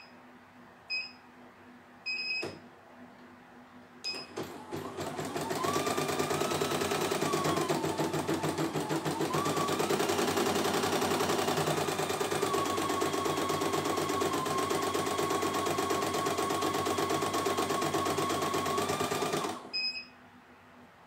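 Four short beeps from the CNY E900 embroidery machine's control panel as buttons are pressed. About four seconds in, the machine starts embroidering: rapid, even needle stitching over a motor whine that shifts in pitch. It runs for about fifteen seconds and stops abruptly near the end.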